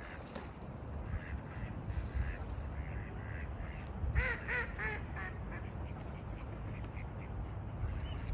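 Ducks quacking: a quick run of about five quacks about four seconds in, with fainter calls scattered around it, over a steady low rumble.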